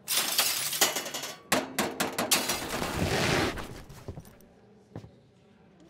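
Metal tableware clattering and clinking as it is handled and gathered up. A dense run of knocks lasts about three and a half seconds, then dies away to a few scattered clinks.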